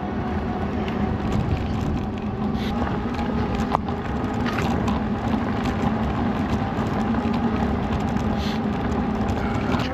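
Electric bike riding along a dirt trail: a steady motor whine over tyre rumble and wind on the microphone, with a few short knocks from bumps.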